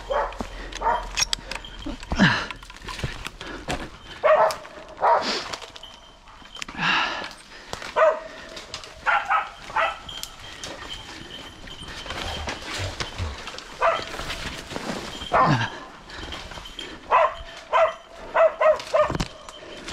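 Hunting hounds barking in irregular runs of short barks, baying a wounded wild boar.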